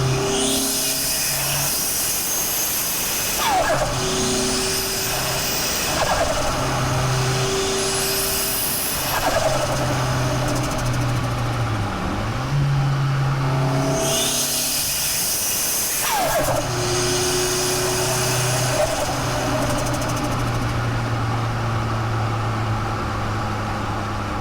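Nissan Pulsar GTi-R's turbocharged four-cylinder engine idling and being blipped several times, each rev followed by a rushing hiss and a falling whistle as it drops back. It then settles to a steady idle for the last several seconds.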